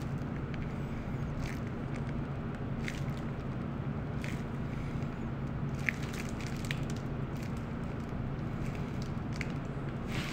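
Brownie batter squeezed from a piping bag into a silicone mould: faint squishing with scattered small clicks, one sharper click about six seconds in. A steady low machine hum runs underneath.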